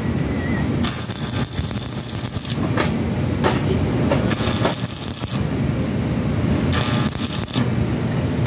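Stick (arc) welding: the electrode's arc crackling in several stretches that start and stop abruptly as short welds are laid, the longest about a second in. A steady low hum runs underneath.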